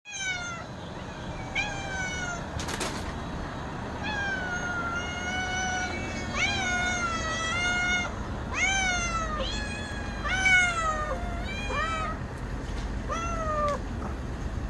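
Domestic cats meowing, about a dozen meows that each rise and then fall in pitch, two cats at times calling over each other.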